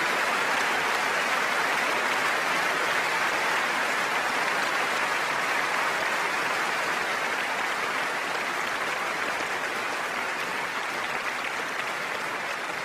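Large concert audience applauding steadily, a dense wash of clapping that slowly dies down toward the end.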